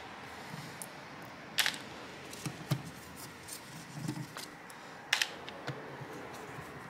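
Scattered sharp clicks and soft taps of a Phillips screwdriver backing screws out of an Acer Spin 3 laptop's bottom cover and the loose screws being handled, with the sharpest clicks about a second and a half in and again about five seconds in.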